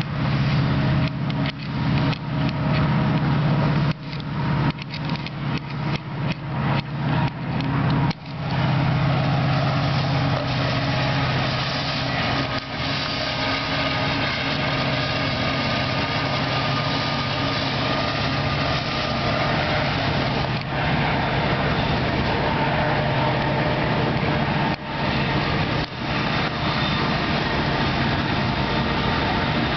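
CN diesel freight train crossing a steel trestle bridge. A strong low locomotive engine drone with an uneven, choppy level runs for about the first eight seconds, then gives way to a steady rumble of covered hopper cars rolling over the bridge.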